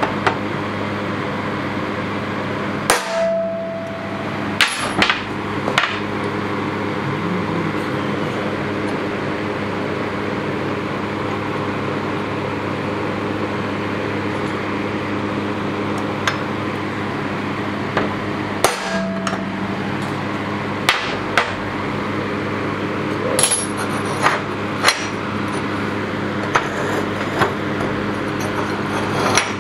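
Hammer tapping a transfer punch to mark hole centres on steel armor plates: scattered sharp metallic taps, a few ringing briefly. There are a few strikes about three to six seconds in, then more from about sixteen seconds on, over a steady background hum.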